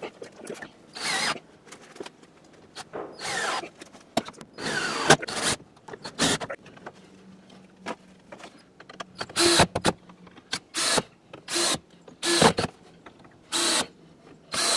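Cordless drill driving screws through a plywood gusset into a wooden roof truss, run in a series of short bursts, the motor's pitch rising as each burst spins up.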